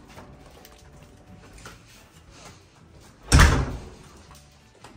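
A single heavy thump about three seconds in, heaviest in the bass and dying away within half a second, over faint handling noises.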